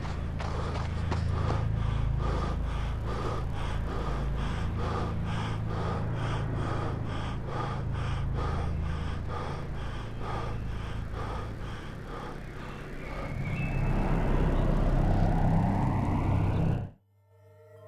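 A man panting hard in regular breaths, about two or three a second, over a low drone. Near the end a rising swell builds and cuts off suddenly.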